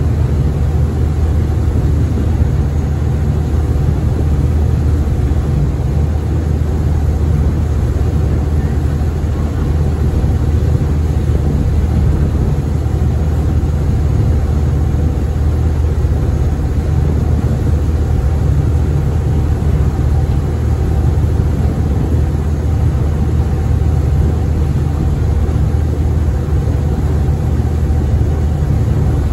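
Diesel engine of the small passenger ferry Tsui Wah 12 running steadily under way, a constant low drone with the rush of water underneath.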